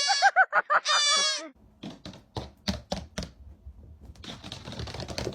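Baby goat bleating loudly, a quavering call broken into short pulses, ending about a second and a half in. Then a run of scattered sharp knocks and clatter with rustling.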